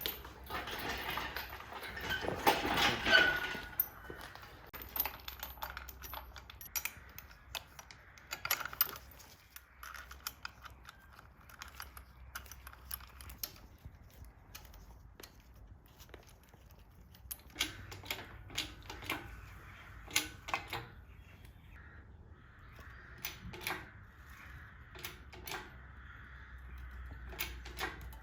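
Scattered metallic clicks and clinks of hand tools and bolts being worked on a car's front subframe, with a louder clattering stretch in the first few seconds.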